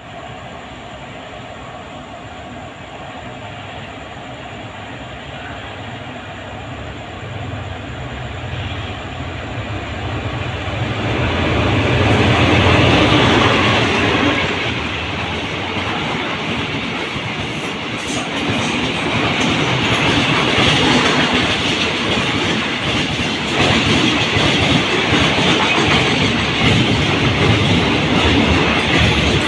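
Diesel passenger train passing close by: a low engine rumble builds over the first dozen seconds, then the cars go past with a loud steady clatter of wheels on the rails and occasional sharper clicks.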